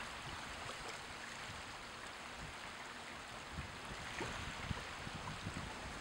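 Small waves washing and lapping at the shoreline: a steady hiss of moving water with soft low splashes, coming more often in the second half.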